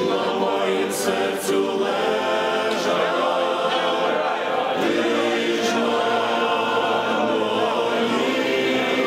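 A choir singing slow, held chords in several parts.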